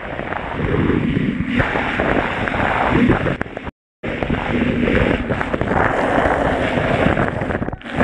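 Pool water rushing and splashing against a camera dragged through it at the surface, a loud churning wash. It breaks off to silence for a moment about four seconds in, then resumes.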